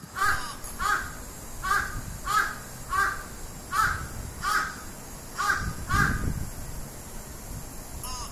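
Crow cawing, about nine short harsh caws in quick succession over the first six seconds, then a pause before fainter caws near the end.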